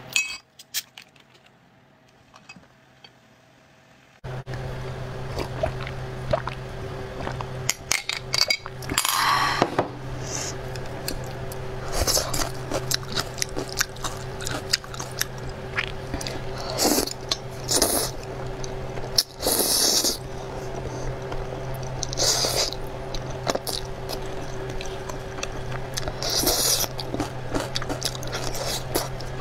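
Ice cubes clinking into a glass tumbler right at the start, then close-up eating sounds: slurping and chewing of thick saucy noodles, repeated bursts of wet mouth noise over a steady low hum that sets in about four seconds in.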